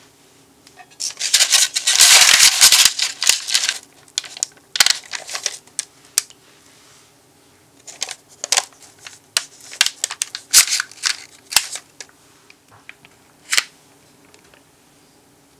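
Thick blueberry cream cheese cake batter being dropped from a spatula and spread in a parchment-lined loaf pan: a loud stretch of sticky, crackly scraping in the first few seconds, then a string of separate short scrapes and dabs as the silicone spatula smooths the batter.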